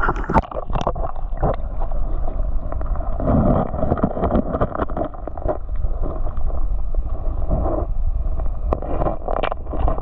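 Water churning and gurgling around an underwater camera as the swimmer moves through the creek, with scattered clicks and knocks.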